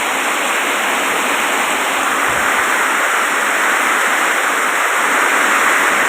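Heavy rain pouring down steadily in a storm, a little louder near the end.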